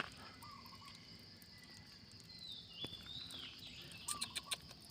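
Faint outdoor ambience: a steady high insect drone, with a few short descending bird chirps and a quick run of soft clicks about four seconds in.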